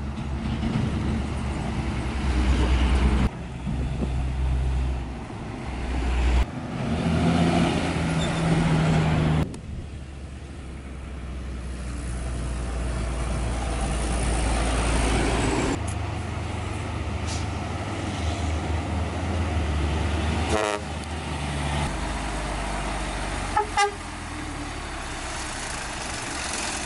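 Heavy diesel dump trucks driving on a dirt haul road, their engines running under load, with the sound changing abruptly several times at cuts. Near the end there are two short horn toots about three seconds apart.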